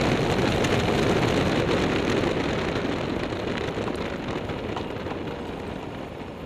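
Rushing wind on the microphone and tyre noise on wet asphalt from a vehicle climbing a mountain road. The noise fades steadily over the last few seconds as the vehicle slows for a hairpin bend.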